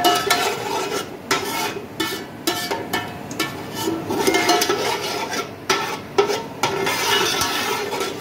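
Slotted metal spoon scraping and knocking around the bottom and sides of an aluminium pot in irregular strokes, stirring fenugreek seeds frying in hot oil.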